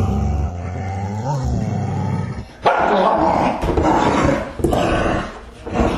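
Dog growling: a low, steady rumbling growl, then after a brief pause louder, rougher growls in bursts about a second apart.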